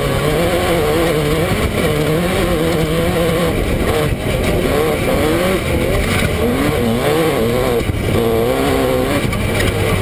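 Off-road race buggy's engine running hard at speed, its pitch rising and falling again and again as the throttle is worked, under a constant rush of wind and driving noise.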